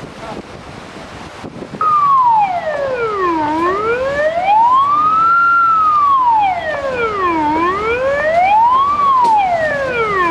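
Siren sounding a slow wail, starting abruptly about two seconds in and rising and falling in pitch every two seconds or so until it cuts off at the end, over a faint wash of wind and water noise.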